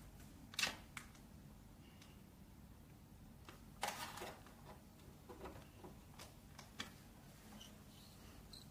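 Handling noise from a mobile radio and its programming cable being connected to a computer's USB port: scattered clicks and rustles. The loudest are a sharp click just under a second in and a short clatter about four seconds in.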